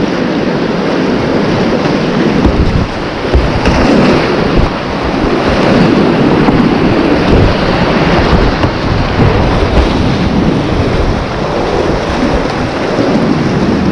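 Whitewater rapids rushing loudly around a kayak running through them, with wind buffeting the camera microphone in low rumbles.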